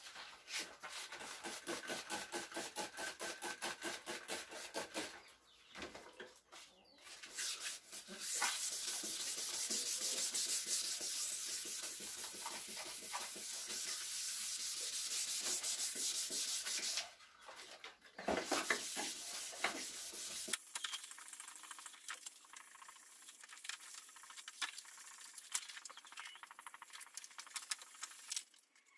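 Sandpaper rubbing on a plastic car headlight lens. It starts as quick, rhythmic back-and-forth strokes, then turns to a steadier stretch of continuous rubbing, and ends with lighter, uneven scraping.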